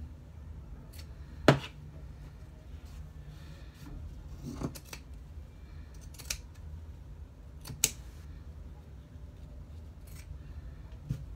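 Scissors cutting through layered fabric scraps to trim the edges of a pieced quilt block: about half a dozen sharp snips spaced a second or more apart, the loudest about a second and a half in, over a faint low hum.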